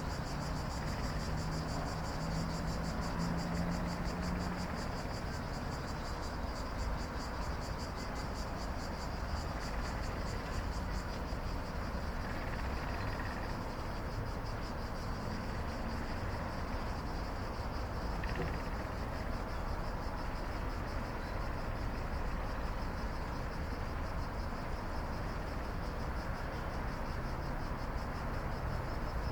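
Night chorus of insects making a continuous high, rapidly pulsing trill, over a steady low rumble. A faint low hum sits under it for the first few seconds.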